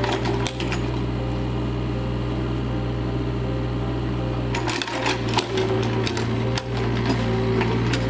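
Mini excavator's diesel engine running steadily while its bucket spreads sand, with sharp clanks and knocks from the bucket and arm that come more often in the second half.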